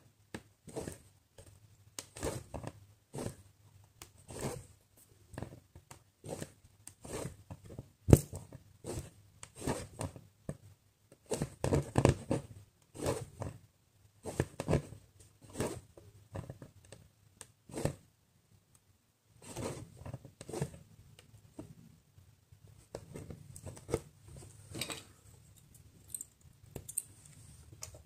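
Cross-stitching: a needle piercing aida cloth and embroidery floss being drawn through it, a quick run of short scratchy pulls at roughly one to two a second, with a brief pause a little past the middle.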